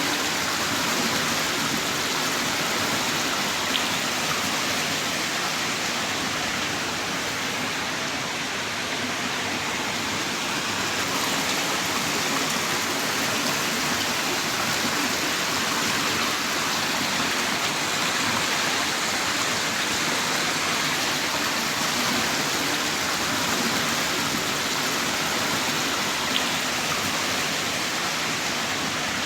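Heavy rain pouring down in a steady, even rush, with an occasional single drop ticking.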